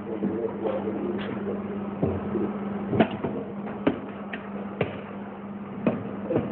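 A handful of sharp knocks and clicks as metal-and-glass reliquary cases are handled and set down on a table, over a steady low hum.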